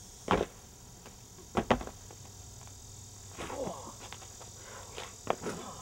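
Several sharp thuds and scuffs of feet and hands landing on asphalt as people dance and do handstands and flips, over a steady high hiss. A short vocal exclamation comes about halfway through.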